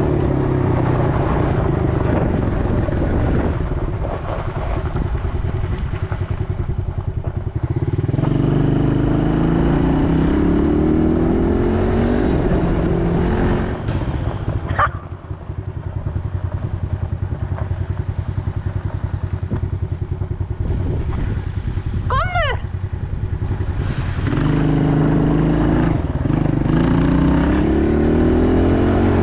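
ATV engine running under way, revving up in long rising climbs, easing off around the middle and pulling again.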